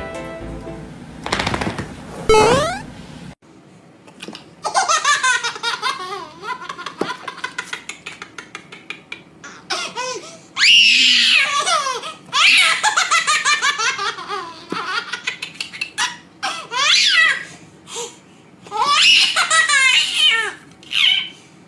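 A baby laughing hard in repeated bursts of belly laughs, starting about three seconds in and getting louder from about halfway.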